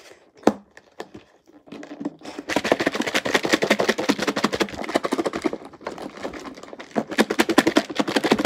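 A salad shaken hard inside a lidded clear plastic takeout bowl: a fast, irregular rattle of lettuce and toppings against the plastic, starting about two and a half seconds in and letting up briefly near seven seconds. A single click about half a second in, as the lid is pressed on.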